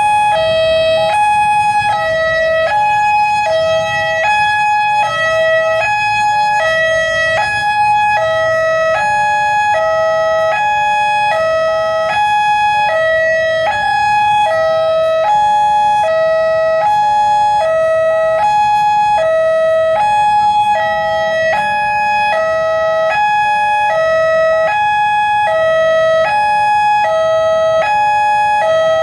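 Railway level-crossing warning alarm sounding continuously: a loud electronic two-tone signal alternating between a low and a high note about every half second, meaning a train is approaching and the barriers are down. A low rumble of road traffic lies under it.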